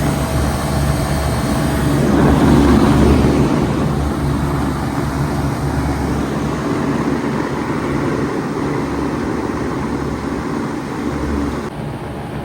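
2007 Bard 3.5-ton wall-hung heat pump running in heat mode: a steady low compressor hum under the rush of its fans. Near the end the hiss thins out a little.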